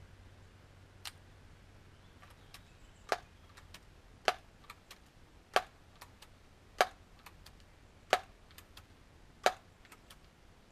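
Daisy PowerLine 901 multi-pump air rifle being pumped: a sharp clack at each stroke of the pump lever, about one every second and a quarter, with lighter clicks between, charging the gun for the next shot.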